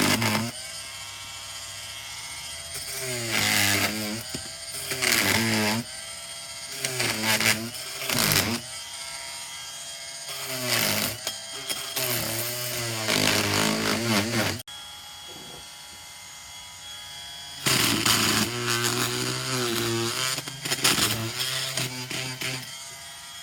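Dremel Multi-Max oscillating multi-tool running in repeated bursts, its buzz bending up and down in pitch as the blade works through old upholstery fabric and staples. It drops away for a few seconds past the middle, then starts up again.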